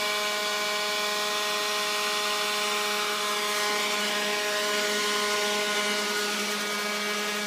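Lightweight Ryobi leaf blower running steadily, a constant motor whine over the rush of air from its nozzle as it blows across the path and grass.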